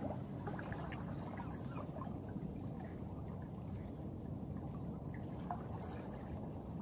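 River water streaming and trickling against a boat's hull and outboard motor: a low, steady wash.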